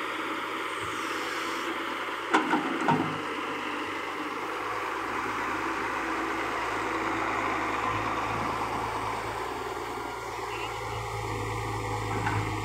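Tata Hitachi EX200LC hydraulic excavator's diesel engine running steadily under digging load, with a few sharp knocks from about two to three seconds in.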